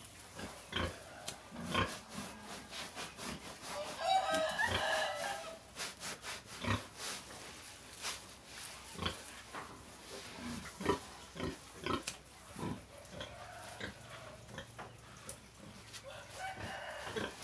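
Domestic pigs grunting and snuffling in a stream of short, irregular sounds, with a louder, higher-pitched call lasting about a second about four seconds in.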